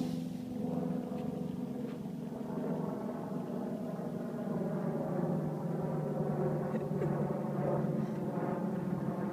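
Steady low hum of a running motor, even throughout, with a few faint clicks over it.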